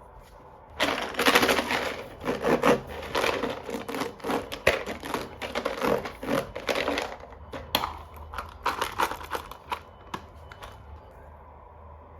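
Plastic toy packaging being handled and opened: a dense run of crinkling, crackling and small clicks that starts about a second in and thins out near ten seconds.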